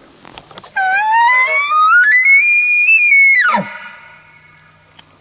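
Elk bugle blown on a hunter's call, imitating a bull elk: one long whistle that starts about a second in, climbs steadily to a high held note, then drops sharply into a low grunt.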